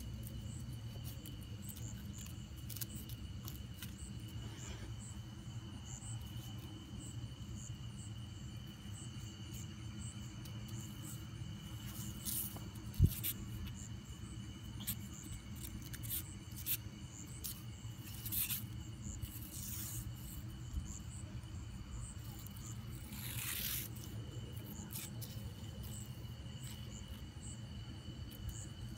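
Night insects trilling in one steady high note, over a low rumble, with scattered light clicks and a sharp knock about 13 seconds in.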